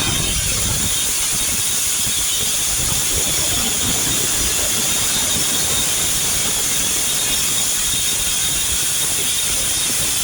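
Steam locomotive letting off a steady, loud hiss of steam, with a low rumble underneath.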